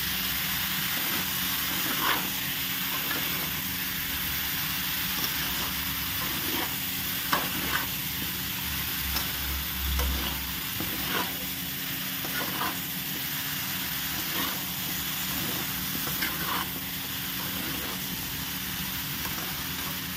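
Spatula stirring chunks of pumpkin, radish and chickpeas around a kadhai, with short scrapes every second or two over a steady frying sizzle.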